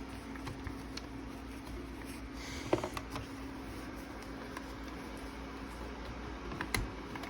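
Quiet handling noises: a brief rustle, a sharp knock about three seconds in and another near the end, with a few faint clicks, over a steady low hum.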